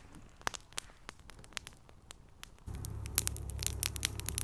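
Campfire of branches and dry grass crackling, with scattered sharp pops. About two-thirds of the way in, a steady low rumble comes in and the pops come much thicker.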